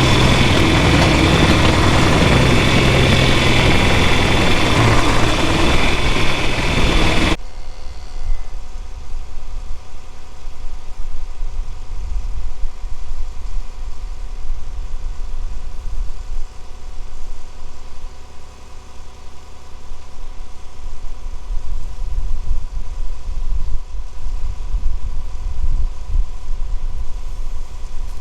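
A vehicle engine running. It is loud and dense for about the first seven seconds, then drops suddenly to a quieter steady hum over an uneven low rumble.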